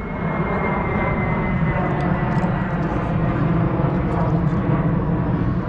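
Airplane passing overhead: a steady rumble with a faint whine that slowly drops in pitch over the first few seconds.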